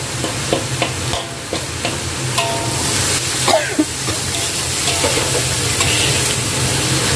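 Metal spatula scraping and tossing shredded bamboo shoots in a hot wok, with repeated scrapes of metal on the wok over a steady sizzle of frying.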